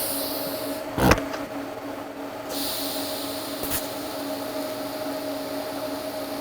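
TIG welder running a fusion weld without filler rod: a steady electrical hum, with a hiss from the arc that sets in about two and a half seconds in. There is a single knock about a second in.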